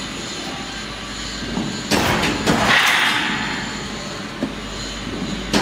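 Steady mechanical running noise of a hexagonal wire netting machine, with a low hum under it. It jumps louder about two seconds in.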